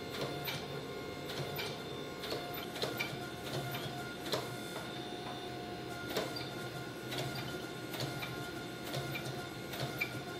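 Hydraulic forging press running with a steady pump hum as it squeezes a red-hot mosaic Damascus billet. Irregular sharp crackles and pops, several a second, come from the scale cracking and flaking off the hot steel.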